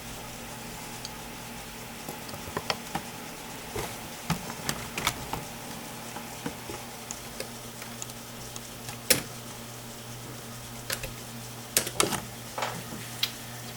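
Steady hum of a running desktop computer, with scattered, irregular light clicks and taps over it.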